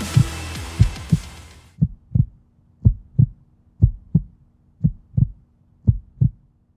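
Heavy music ends about two seconds in, giving way to a heartbeat-like sound effect: slow low double thumps, about one pair a second, over a faint steady hum.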